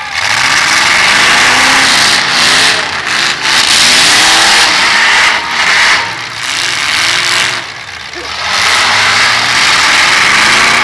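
Demolition derby car engines revving hard, their pitch climbing and falling again and again as several cars accelerate and ram one another. The noise eases off briefly about three-quarters of the way in, then picks up again.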